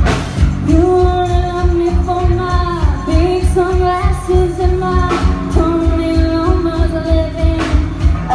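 A band song with a singer holding long notes over a steady drum and bass beat.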